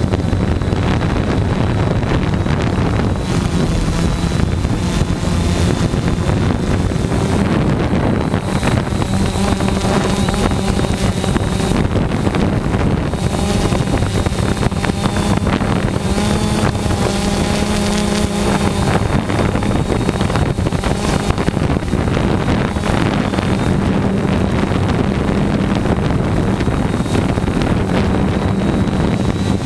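Quadcopter's electric motors and propellers buzzing steadily while it hovers, heard from the camera on board. The hum's pitch drifts slightly up and down as the motors adjust.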